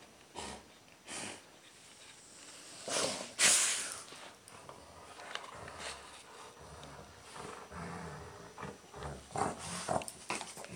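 Two golden retrievers play-growling low and in short spells while tugging on a sock between their jaws, with breathy noises throughout and one louder noisy burst about three and a half seconds in.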